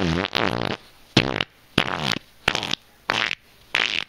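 Intro sound effect: a rhythmic string of short, buzzy pitched blasts, about one every two-thirds of a second, the first a longer wobbling blast that falls in pitch.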